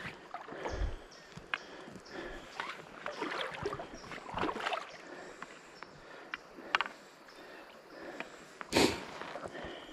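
Shallow creek water sloshing and splashing around the legs of a wading angler, with scattered small splashes and one louder sudden noise near the end.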